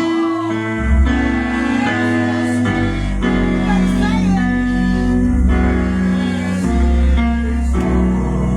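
Gospel music: instruments playing held chords over a bass line that changes every second or so.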